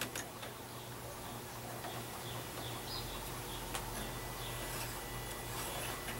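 Pencil drawing a line along a metal strip guided by a square: faint scratching over a steady low hum, with a couple of small sharp ticks.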